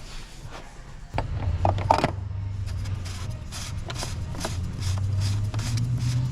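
Ratchet wrench clicking in a steady rhythm, about two and a half strokes a second, over a low steady hum that sets in about a second in.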